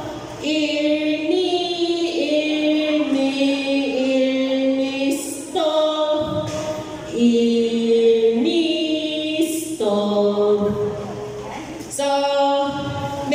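Voices singing a slow melody unaccompanied, in long held notes that step up and down in pitch, phrase after phrase with short breaks between.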